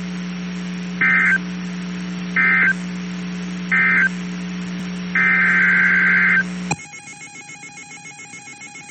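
EAS digital data bursts over a steady low hum: three short screechy bursts about a second and a half apart, which is the end-of-message code closing the warning, then one longer burst. Near the end the hum cuts off and a steady EAS attention tone, a two-tone sound that rings like a telephone, begins.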